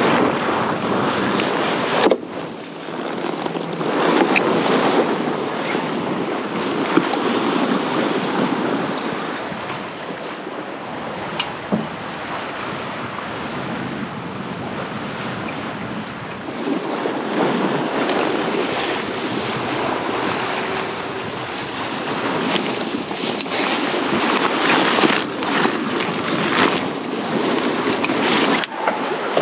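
Wind and waves rushing along a sailboat's hull while under sail, with wind buffeting the microphone; the noise swells and eases with the passing waves.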